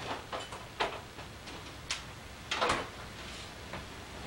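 Several short knocks and clatters of kitchen items being handled, spaced irregularly, the longest and loudest a little past halfway.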